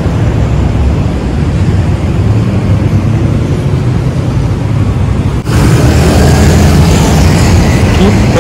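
Busy city road traffic: cars passing, a steady rumble of engines and tyres. About five seconds in it breaks off sharply and turns louder.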